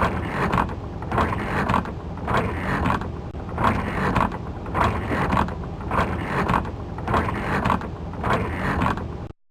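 Windshield wipers sweeping back and forth, heard from inside the car, with an even swish-and-creak about every 0.7 seconds over the car's steady low rumble. The sound cuts off abruptly near the end.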